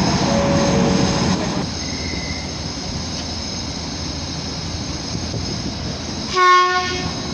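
Container freight train hauled by an ET22 electric locomotive running past: wagon wheels rolling with some squeal for the first second and a half, then a steadier, quieter rumble. Near the end a short, loud horn blast.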